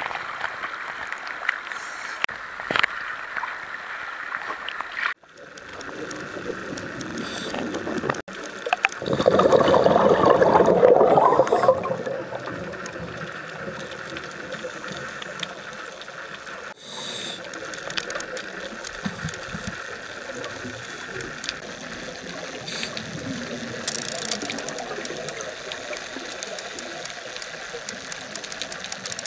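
Sea water heard through a camera's waterproof housing: waves washing at the surface, then underwater hiss and bubbling, with a louder rush of bubbling about nine to twelve seconds in. The sound breaks off and restarts abruptly a few times.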